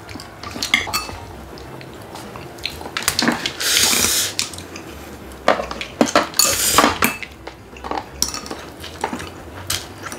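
Chopsticks, kitchen scissors and tableware clicking and clinking against bowls and plates, with a couple of longer hissing slurps of noodles, the clearest about four and seven seconds in.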